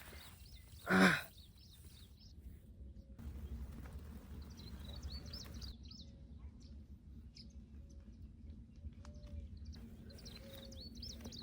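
Small birds chirping now and then in short high calls, over a low rumble. There is a brief, loud voice-like sound about a second in.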